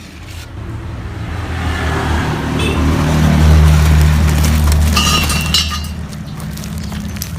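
Yamaha RX-King two-stroke motorcycle engine running, growing louder to a peak about three and a half seconds in, then easing back to a steady run.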